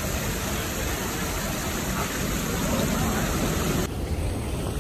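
Steady rushing and splashing of a small waterfall spilling over rock into a shallow pool. About four seconds in, the sound cuts abruptly to a duller, lower rush.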